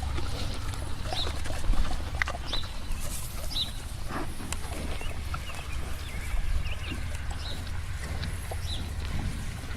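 Farm animals calling: short high-pitched chirps repeating roughly once a second, over a steady low rumble and scattered clicks.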